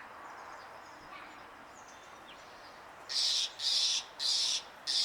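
A bird's harsh call, four short rasping notes in quick succession starting about three seconds in, over faint distant chirping.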